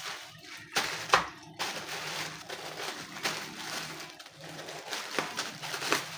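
A parcel's packaging being handled and opened: crinkling and rustling with sharp crackles, the loudest a snap about a second in.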